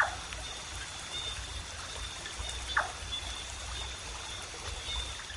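Water trickling, with two short sharp sounds about three seconds apart and a faint steady high-pitched whine underneath.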